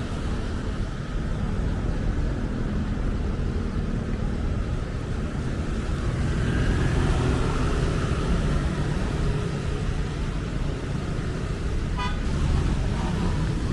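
Road traffic on a wet city street: a steady rumble of passing vehicles that swells for a few seconds midway. A short car horn toot comes near the end.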